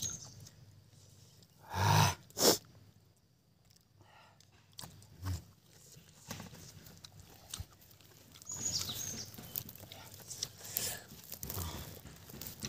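Close-up mouth sounds of eating ripe jackfruit pods: lip smacks and chewing clicks. A loud short burst with a sharp smack just after comes about two seconds in, and the smacks and clicks grow busier near the end.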